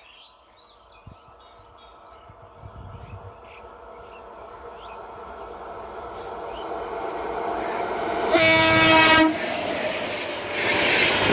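WAP7 electric locomotive approaching at the head of an express train, its running noise growing steadily louder. It gives one horn blast of about a second, some eight seconds in. Near the end the train's rushing, rattling noise jumps up as it draws close.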